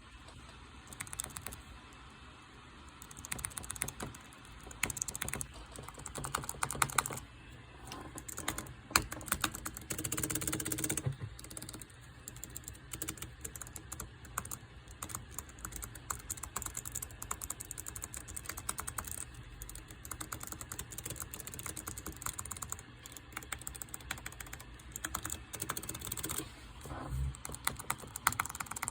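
Typing on a Mistel Air ONE mechanical keyboard: keys clacking in quick, uneven runs, with a dense flurry of keystrokes around ten seconds in.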